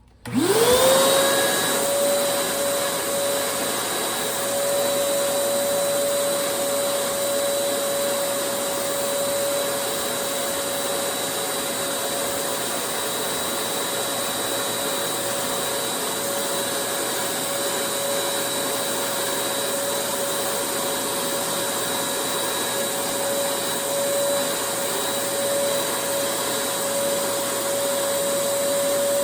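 A vacuum cleaner motor switching on, spinning up within about half a second to a steady high whine, then running continuously while it is used to clean out a clogged vacuum filter.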